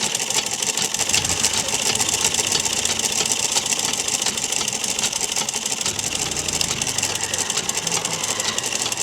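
Sewing machine running at speed: a steady, fast clatter of needle strokes.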